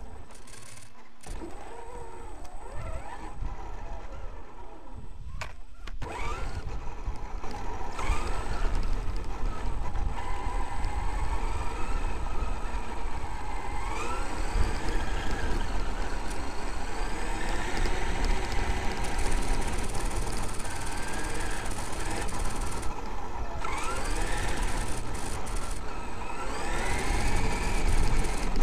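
Traxxas X-Maxx RC monster truck's brushless electric motor and drivetrain whining, the pitch rising each time it accelerates, over a steady rumble of tyres and chassis on a rough dirt track. The first few seconds are quieter, and the sound grows louder from about six seconds in.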